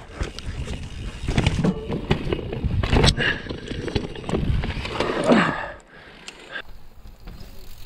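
Vitus Sommet 29 VRX mountain bike riding down a rough, technical trail, heard from a chest-mounted GoPro. There is a dense rattle and knocking from the chain, suspension and tyres hitting roots and rocks, over low wind rumble. It eases off about six seconds in.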